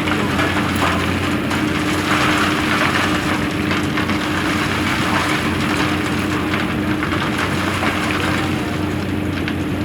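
Komatsu PC200 excavator's diesel engine running steadily under load, with a steady low hum and a rushing, noisy layer that swells about two to four seconds in.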